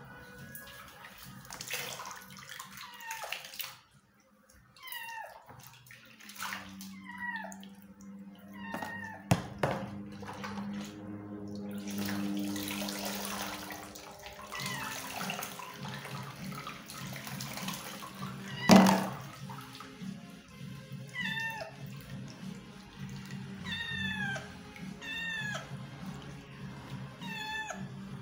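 Cat meowing over and over in short cries that fall in pitch, a sign of its nervousness while being bathed, with sloshing and pouring water from a basin of soapy water. One sharp knock about two-thirds of the way in is the loudest sound.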